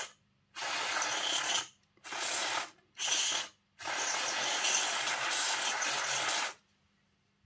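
Aerosol cleaning spray hissing out of a can through a thin extension straw in four bursts, three short ones and then a long one of nearly three seconds, as the dirty axles and springs of a model locomotive chassis are sprayed clean.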